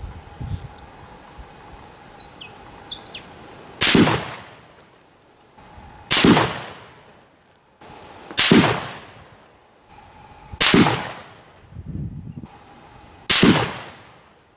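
Five rifle shots from a Howa HLR bolt-action rifle in 6.5 Creedmoor, fired about two to two and a half seconds apart, each trailing off over about a second. A few faint bird chirps come before the first shot.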